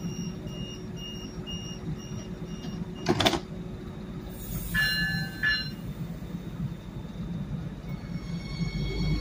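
Stadler GTW diesel multiple unit idling while its door warning beeps about twice a second. About three seconds in, the sliding door shuts with a thud, followed by a short hiss of air and two short chimes. A steady whine sets in near the end as the train readies to pull away.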